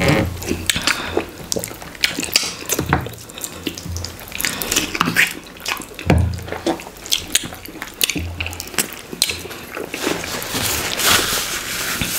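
Wet, sticky hand-eating sounds: fingers squishing fufu and scooping slimy okra stew, with many short clicks and smacks.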